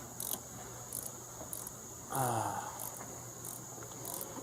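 Insects, likely crickets, chirping outdoors: a steady high-pitched trill with short pulses repeating about every two-thirds of a second. A brief voice sound, falling in pitch, is heard about two seconds in.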